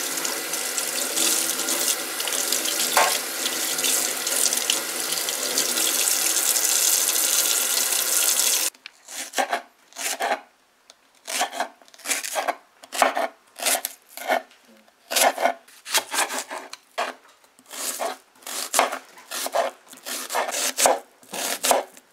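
Kitchen tap running steadily into a stainless-steel sink as scallions are rinsed under it. About nine seconds in it cuts off, and a knife then slices scallions and onion on a wooden cutting board in short, irregular cuts, roughly two a second.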